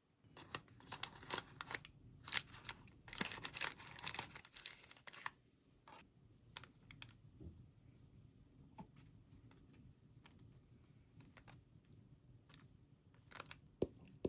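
Small clicks, taps and rustling of the paper liner as food is handled and packed into a paper-lined bento tin, busiest in the first five seconds and sparse after that. Near the end comes one sharp click as the flip-top cap of a Parmesan cheese shaker is snapped open.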